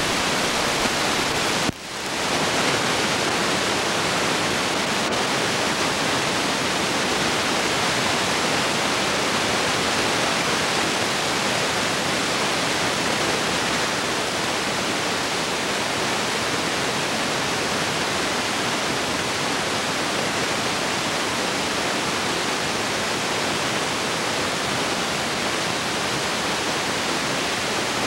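Steady, loud hiss of blank-soundtrack recording noise with no other sound, dipping for an instant about two seconds in.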